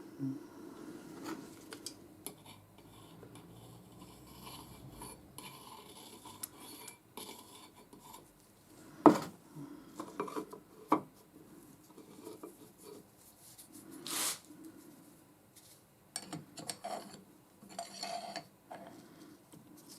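Steel lathe parts being handled and fitted together: scattered light metal clinks and short scrapes of metal on metal, with a sharper knock about nine seconds in.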